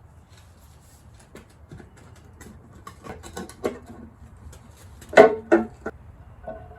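Scattered light metallic clicks and taps of hand tools and bolts on an engine's valve cover, with a louder ringing clank about five seconds in as metal parts knock together.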